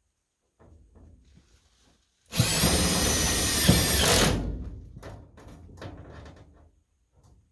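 Power drill driving a self-tapping screw into sheet metal ductwork, a run of about two seconds starting a couple of seconds in, followed by fainter knocks of handling.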